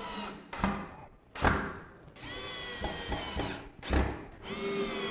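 Ryobi cordless drill-driver driving screws into particleboard: the motor whines in three short runs of about a second each, with sharp knocks between them, the loudest about 1.5 seconds in.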